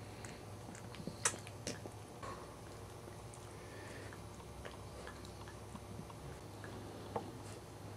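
Mother Cairn Terrier licking her newborn puppy clean: scattered wet tongue clicks and smacks, a few sharper ones standing out, over a steady low hum.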